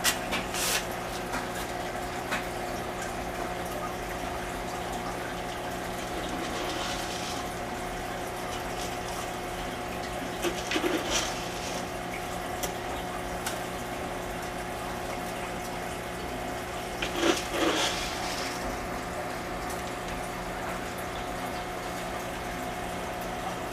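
Aquarium filter running: a steady trickle of moving water over a constant pump hum, with a few brief louder sounds, the clearest around 11 and 17 seconds in.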